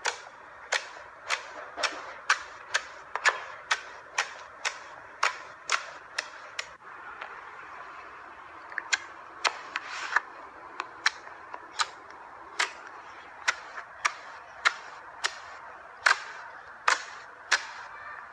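Large clear slime being squeezed and folded by hand, its trapped air popping in sharp clicks about twice a second, with a short pause partway through before the clicks resume more irregularly.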